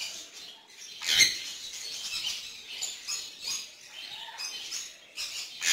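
Many parrots chirping and squeaking together in short, high calls, with a louder sharp burst about a second in and another near the end.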